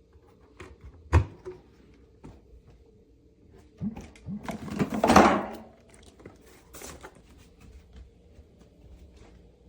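Handling noises: a sharp click or knock about a second in, scattered small clicks, and a louder rustling, scraping burst from about four to five and a half seconds in.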